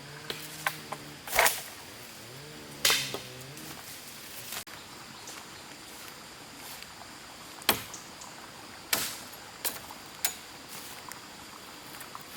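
Blade chopping tree branches: sharp knocks at irregular gaps, the loudest about a second and a half and three seconds in. A long pitched call sounds through the first second or so and again around two to three seconds in.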